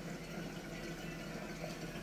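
Steady water-circulation noise from a home reef aquarium, water rushing and trickling over a low, even hum.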